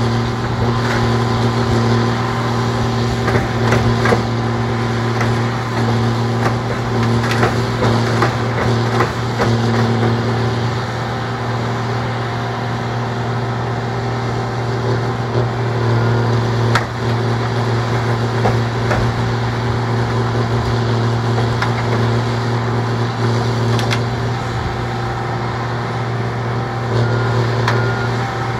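Engine of a rail-mounted tie removal machine running steadily under load, with scattered knocks and clanks as it works old wooden railroad ties out from under the rails. The knocks come thickest in the first ten seconds, with one sharp knock about midway.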